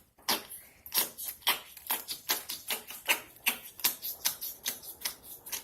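Noise putty being squeezed and pressed in its plastic container, making a run of short wet squelching pops at about two to three a second.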